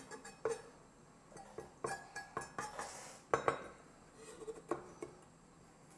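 Kitchen knife scraping and tapping on a wooden cutting board as chopped parsley is pushed into a small bowl, with light clinks against the bowl. Scattered scrapes and taps, loudest about three and a half seconds in, stopping about a second before the end.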